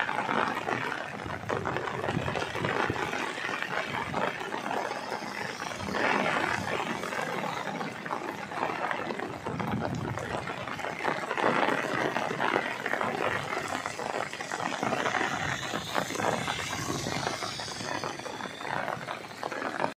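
Heavy rain falling on a paved road: a steady hiss of dense drops, with many small sharp ticks through it.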